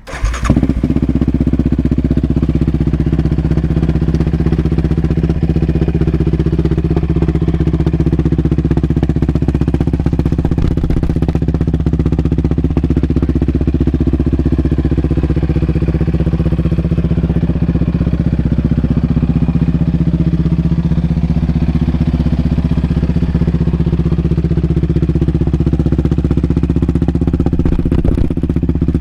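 2019 Yamaha Raptor 700R's single-cylinder engine, fitted with an aftermarket Monster exhaust, starts up at the very beginning and then idles steadily.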